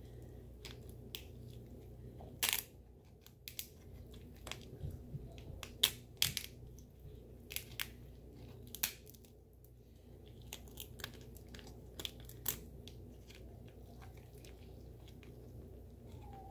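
Boiled lobster tail shell being cracked and pulled apart by hand, giving irregular sharp cracks and crunches, a few of them louder, over a steady low hum.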